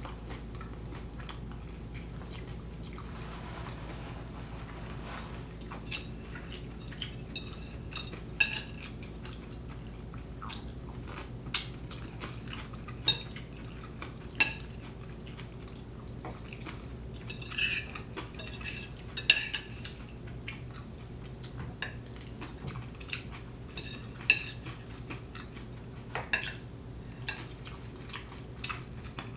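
Metal cutlery clinking against a plate in irregular single clinks, each ringing briefly, a second or two apart, over a steady low hum.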